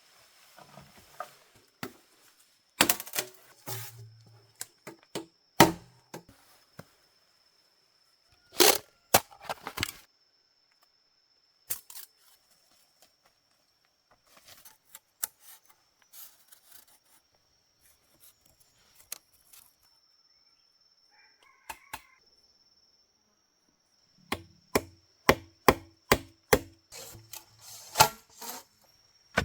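Sharp chopping strikes of a blade into wood, a few spaced-out blows and then a quick run of about a dozen near the end, over a thin steady high insect drone.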